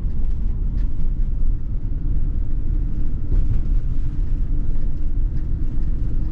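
Road noise heard inside a moving car: a steady low rumble of tyres and engine.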